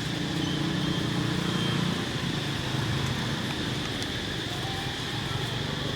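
An engine running steadily, with a low wavering hum that swells slightly and eases off, and a thin steady high drone above it.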